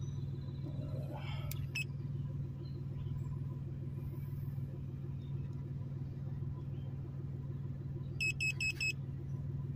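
2009 Chevy Impala engine idling steadily, heard from inside the cabin. Four quick electronic beeps sound a little past eight seconds in.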